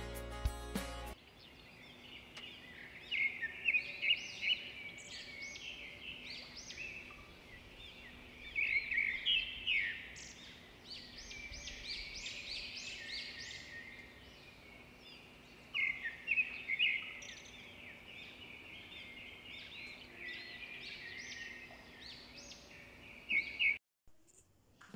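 Birdsong: many small birds chirping and trilling in quick flurries, over a faint steady hum. A few notes of music end about a second in, and the birdsong cuts off shortly before the end.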